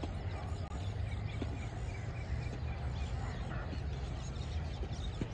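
Open-air ambience: a steady low rumble, with faint rapid bird chirps repeating about three or four times a second in the first half.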